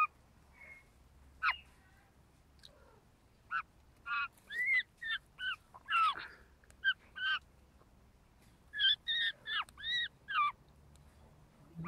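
Young Australian magpie giving a series of short calls that rise and fall in pitch, in two runs of several calls each with a pause of about a second and a half between them.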